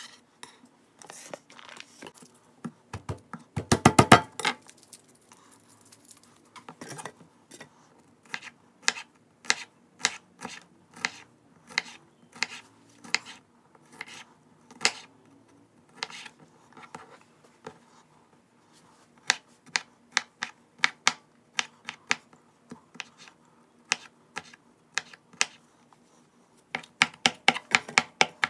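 Santoku knife chopping garlic cloves directly on a hard countertop: irregular sharp knocks of the blade on the surface. There is a quick burst of rapid chops about four seconds in and another near the end.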